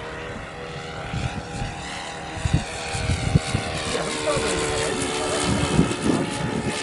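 Small OS FS40 four-stroke glow engine of a radio-controlled sport plane running in flight, its propeller drone steady at first and shifting in pitch from about four seconds in as the plane passes and manoeuvres.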